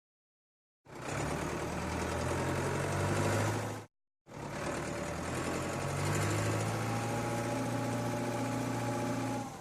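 Heavy-machine engine sound effect of a cartoon wheel loader running steadily, in two stretches of about three and five seconds, each starting and cutting off abruptly.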